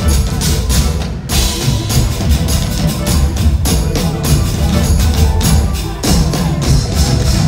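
Live pop band playing an instrumental passage, with a driving drum kit, heavy bass and keyboards, heard from inside the concert crowd.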